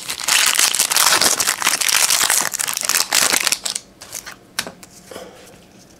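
A trading-card pack wrapper crinkling loudly as it is torn open and pulled off the cards, for about three and a half seconds, followed by a few light clicks of cards being handled.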